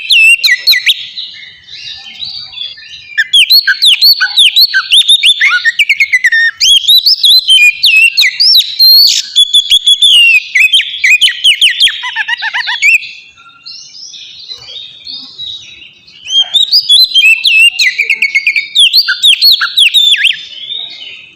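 Oriental magpie-robin (kacer) in full song: a loud, fast run of varied, sweeping whistles and chirps. The song comes in three long bursts separated by short lulls.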